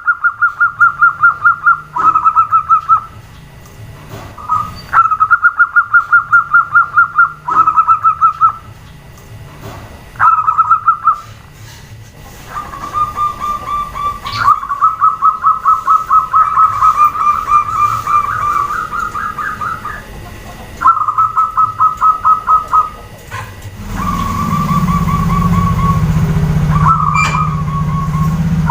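Zebra doves calling in bursts of rapid, evenly pulsed trilled notes, one burst after another with short gaps; the female's call, which draws the males to answer. Near the end a steady low hum comes in underneath.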